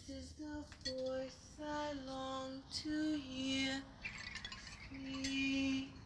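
Background film music: a slow melody sung by a woman's voice in long held notes, with a few chiming notes about four seconds in.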